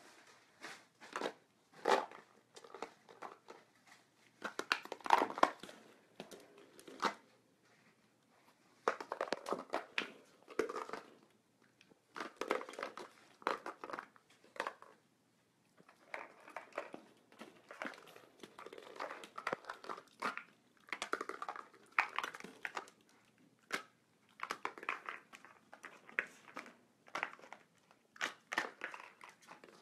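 Hollow plastic ball-pit balls clattering, knocking together and rolling on a hardwood floor as a fox terrier noses and paws through them, in irregular flurries of light clicks and knocks.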